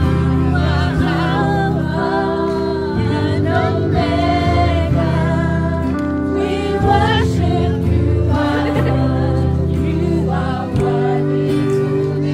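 Gospel music with a choir singing over sustained low instrumental notes.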